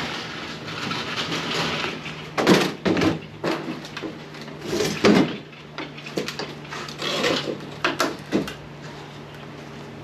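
Irregular knocks and clunks of things being handled and set down, after a stretch of rustling.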